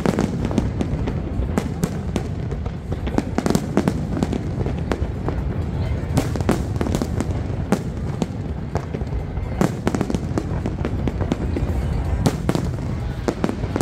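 Large aerial fireworks display: many rapid, overlapping bangs of shells bursting, over a constant low rumble.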